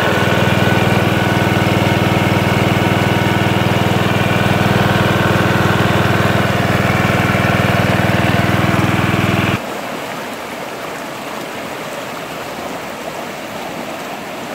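A small gasoline engine on a portable water pump running steadily, cutting off suddenly about ten seconds in. After that only the steady rush of a fast-flowing, flooded river.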